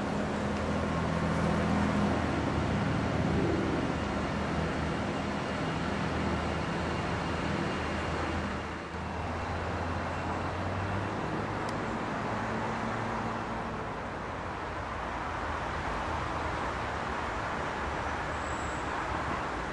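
Steady road-traffic noise, a continuous low rumble and hum with a brief dip about halfway through.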